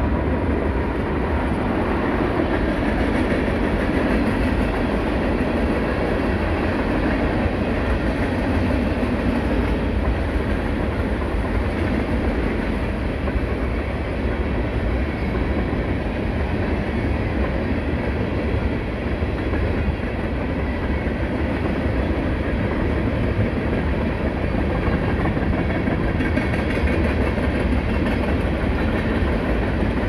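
Norfolk Southern manifest freight train rolling past, a string of tank cars and boxcars behind the locomotive, with a steady rumble of wheels on the track.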